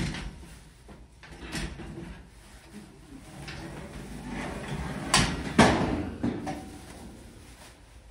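Black metal dog crate panels knocking, clanking and scraping as a plastic-wrapped panel is handled and slid out of the frame, with some rustling between the knocks. The loudest knocks come about five seconds in.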